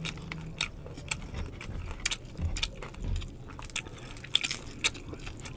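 Crispy crackling skin of deep-fried pork belly (bagnet) being torn apart by hand and chewed: a string of irregular sharp crunches and crackles.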